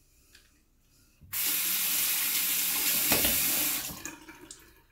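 Bathroom sink tap turned on and running into the basin for about two and a half seconds, then shut off.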